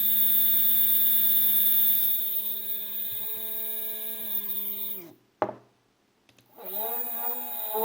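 Two stepper motors wired in parallel on one driver, sharing 2 A, running fast with a loud whine and high hiss: the noise and heavy vibration the owner is investigating. They stop just after five seconds in, with a click and a moment of quiet, then start again with the pitch wavering and rising as they accelerate.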